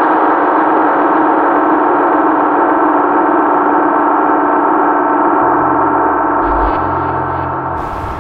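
Sustained gong-like metallic ringing with several steady overtones, slowly fading. From about five and a half seconds a low, stepped pulsing drone joins underneath.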